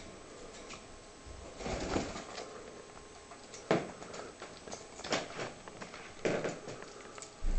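Handling of a peeled boiled egg on a paper towel while a cockatiel pecks at it: about five soft, irregular rustles and crackles, a second or so apart.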